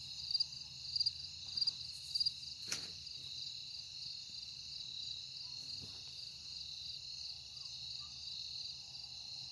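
Crickets chirping: a steady high trill, with a louder chirp repeating a little faster than once a second for the first couple of seconds and then stopping. A single sharp click a little under three seconds in.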